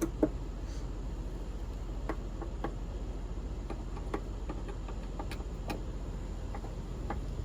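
Scattered light clicks and taps of a hand Phillips screwdriver turning the screws that snug down an RV latch's back plate, at irregular intervals over a steady low hum.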